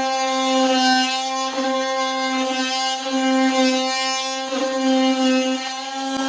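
Electric power tool running with a steady high-pitched whine, its loudness swelling and dipping every second or so as it works.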